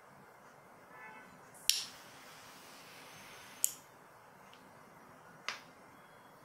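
A pipe lighter clicking three times, sharp clicks about two seconds apart, with a faint hiss between the first two.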